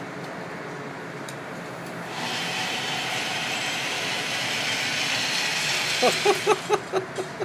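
Motorized target retriever running along its overhead track, carrying the paper target back up the range lane: a steady whirring hiss that starts about two seconds in and grows louder as the carrier approaches.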